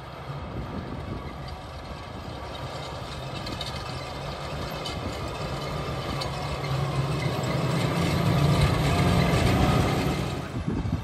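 Landini 8-310 tractor's diesel engine running steadily as it pulls a trailed tillage implement across the field, growing louder as it approaches. It is loudest about nine seconds in, then falls away near the end.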